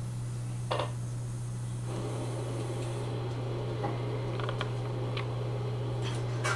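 A steady low hum, with a few small clicks and light rustles over it.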